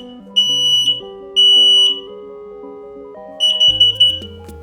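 Smoke alarm sounding on its test button: loud, high-pitched beeps in the three-beep pattern. The end of one beep, then two more about half a second apart, a pause, and a broken, stuttering burst about three and a half seconds in.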